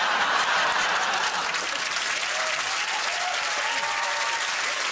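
Studio audience applauding steadily, with a few faint voices audible in it around the middle.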